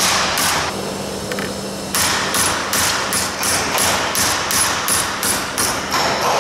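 Hand hammer striking the flange of a metal aircraft fuselage former clamped in a bench vise: quick, even blows about three a second, knocking the material over and stretching it round the inner curve. The blows pause briefly under a second in and resume about two seconds in.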